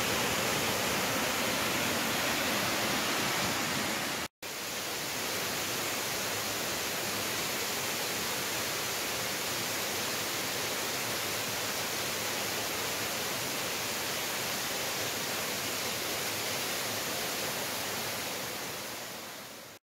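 Steady rushing of the Güver waterfall, cut off for an instant about four seconds in, then resuming slightly quieter and fading out near the end.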